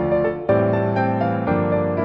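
Background piano music, with new notes struck every half second to a second.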